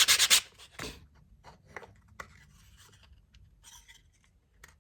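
Sandpaper rubbed in quick back-and-forth strokes on a piece of elm, stopping about half a second in. A knock follows, then faint taps and scrapes of the wooden box parts being handled.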